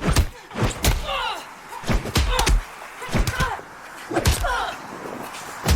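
Staged fight-scene audio: a quick series of hits and slams, roughly one every half second to a second, each followed by short grunts or cries from the fighters.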